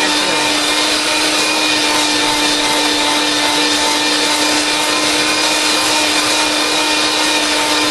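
Electric mixer running at a steady speed, its beaters whipping heavy cream with powdered sugar into stiff whipped cream: a loud, even motor whine.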